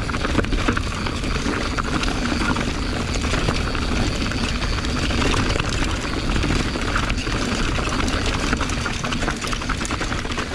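Mountain bike rolling down a rocky dirt trail, heard from a camera on the rider's bike: steady wind rush on the microphone with tyre rumble and frequent rattling clicks as the bike bounces over rocks and roots.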